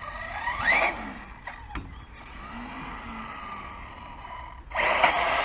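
Brushless electric motor of an Arrma Outcast 6S RC monster truck whining up sharply in pitch as the throttle is punched, then a loud rushing of the truck running hard over concrete near the end.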